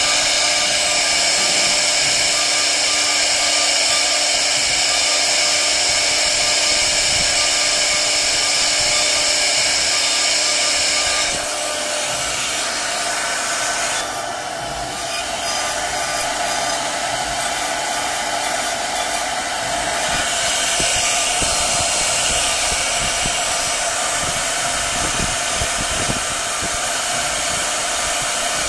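Rotary CNC router's high-speed spindle whining steadily as its bit cuts into a turning wooden pillar blank. The sound drops a little about twelve seconds in and picks up again about twenty seconds in.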